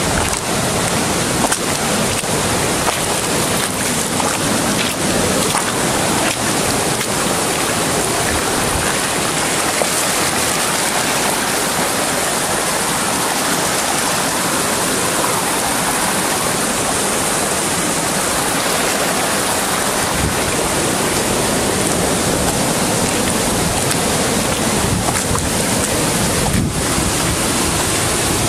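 Loud, steady rush of water: hurricane floodwater running over the ground and a swollen creek in spate, mixed with heavy rain.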